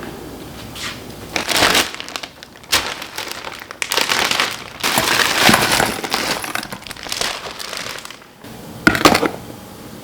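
Plastic bags and food packaging rustling and crinkling in several irregular bursts, loudest about halfway through, as things are handled.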